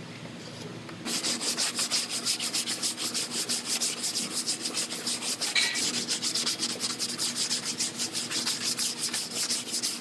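Hand sanding on a car door panel: a sanding block rubbed back and forth in quick, even strokes, starting about a second in.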